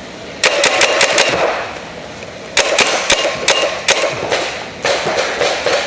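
Paintball markers firing reballs in three quick strings of sharp shots, several shots a second, with short pauses between the strings.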